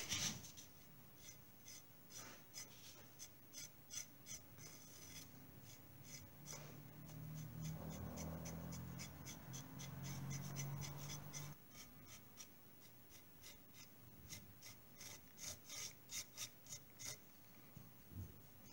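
Dry-brushing: the bristles of a paintbrush, its tip barely loaded with undiluted red tempera, scratching in quick short strokes over the raised relief of a white-painted picture frame, faint throughout and coming thickest near the end. A faint low hum comes in for a few seconds in the middle.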